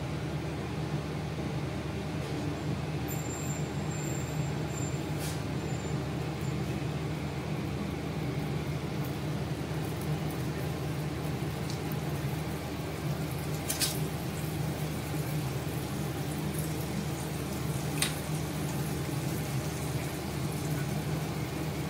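Pancakes frying on a non-stick tawa, butter foaming at their edges: a steady low sizzle over a constant hum, with a few faint ticks.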